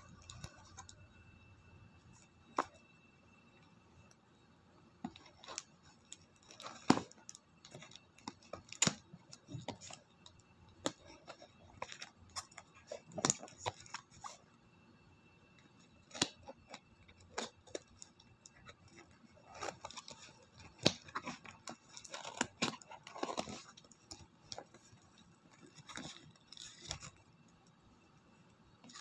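Packaging being handled and opened by hand: irregular crinkling, tearing and snipping, with scattered sharp clicks.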